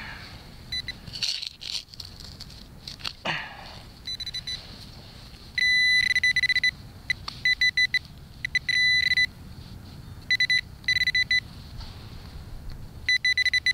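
Shovel blade cutting and scraping through soil for the first few seconds, then a Garrett Pro-Pointer pinpointer sounding its high alert tone over the hole. It beeps in repeated bursts, some held for about a second and some broken into rapid pulses, as it locates a metal target in the dirt.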